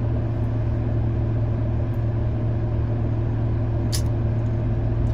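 Car engine idling steadily with an even hum, the car standing still. There is a single brief click about four seconds in.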